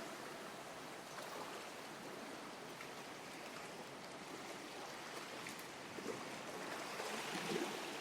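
Calm sea water lapping against a harbour pier: a steady soft wash of small waves, with a few faint splashes in the last couple of seconds.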